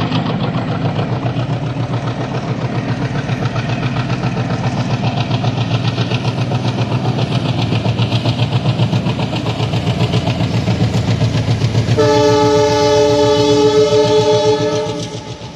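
WDM-3D diesel locomotive running with a train, a steady fast rhythmic beat. About twelve seconds in, its multi-tone horn sounds for about three seconds.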